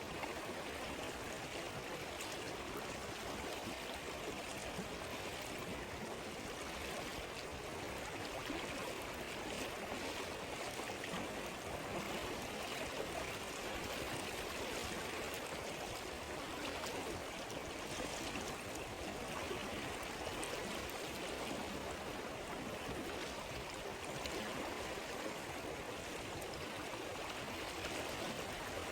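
A river or stream flowing with a steady, even rush of water, with a few faint sharp ticks over it.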